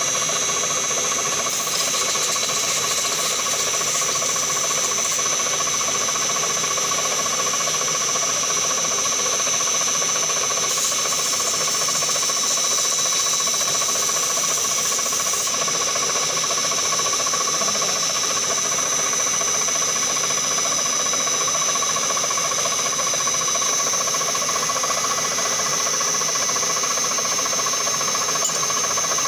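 CNC milling machine running, a steady high whine over a hiss; twice the hiss grows louder and brighter for a few seconds, about two seconds in and again about eleven seconds in.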